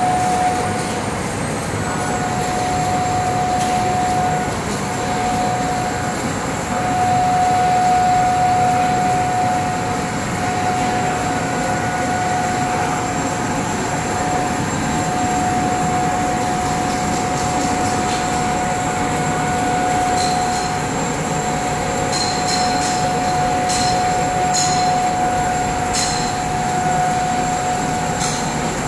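M370 label finishing machine running with its web moving over the rollers: a steady mechanical hum with a constant high whine, and a few sharp clicks in the last third.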